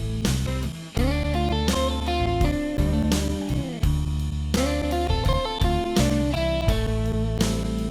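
Background music led by an electric guitar playing bent, gliding notes over a bass line and a steady beat.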